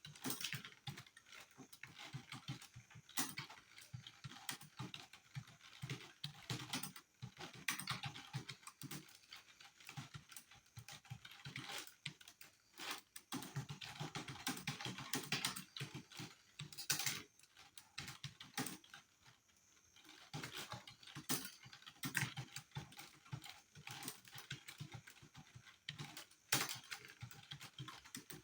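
Fast, continuous typing on a computer keyboard during a timed typing test, keystrokes clicking in quick uneven runs with brief pauses, at a pace of about 43 words per minute.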